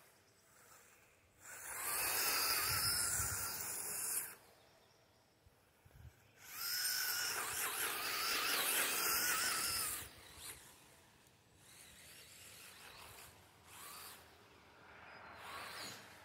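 Electric motor and drivetrain of a WLtoys 124019 4WD RC buggy whining in two bursts of about three seconds each, the pitch wavering as the throttle changes, followed by several shorter, fainter runs.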